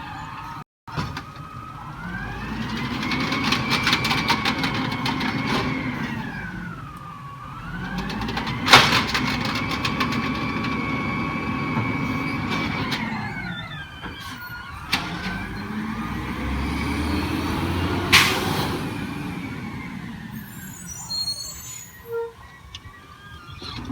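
Peterbilt 320 garbage truck's engine revving up and settling back three times, a rising, held and falling whine each time, as it drives the hydraulic packer of the Amrep elliptical body. Two sharp bangs come during the second and third revs.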